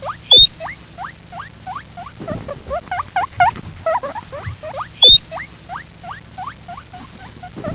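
Guinea pig squeaking in a string of short rising whistles, two or three a second. Two loud sharp clicks come in, one right at the start and one about five seconds in.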